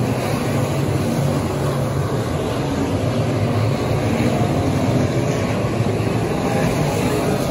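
A pack of dirt-track limited modified race cars running at speed around the oval, their V8 engines blending into one steady, loud din.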